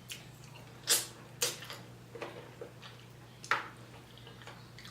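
Close-miked eating sounds: a few sharp, wet mouth smacks and clicks of chewing, the loudest about a second in and another a little after three seconds in, over a faint steady low hum.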